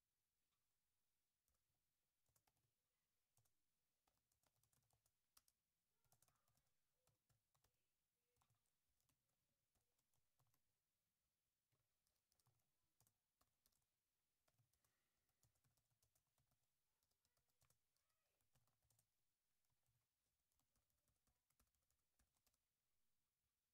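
Very faint typing on a computer keyboard: irregular runs of key clicks with short pauses between them.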